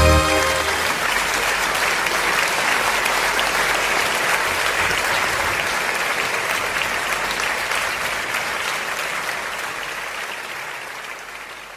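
Audience applauding as the wind ensemble's final held chord cuts off right at the start; the clapping fades out over the last few seconds.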